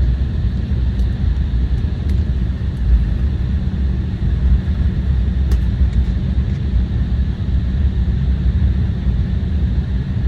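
Steady, loud cabin noise of an Embraer 175 jet airliner under way: a deep rumble of engines and airflow with a hiss over it and a few faint clicks.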